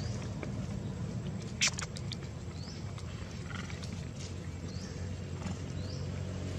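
Outdoor ambience under a steady low hum, with one sharp click about a second and a half in. Three short rising chirps come in the second half.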